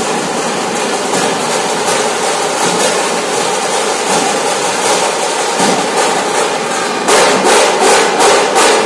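A Nashik dhol ensemble of many large barrel drums beaten with sticks, playing a dense, fast beat. About seven seconds in the drumming gets louder, with heavy unison strokes about three a second.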